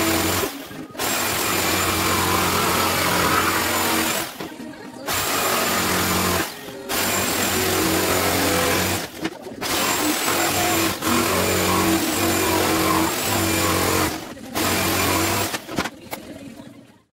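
Electric jigsaw cutting plywood in several runs, stopping briefly between cuts. The motor hum and blade noise cut off suddenly near the end.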